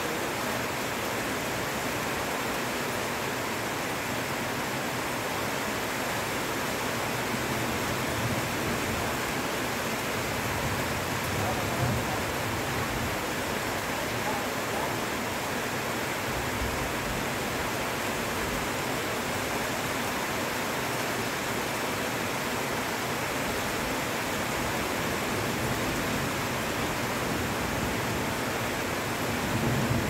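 Intense heavy rain falling steadily on trees and foliage, a dense even hiss that holds at one level throughout.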